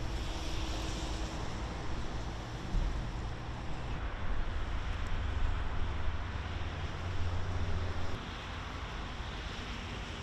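Outdoor ambience: a low steady rumble with wind noise on the microphone, easing about two seconds before the end.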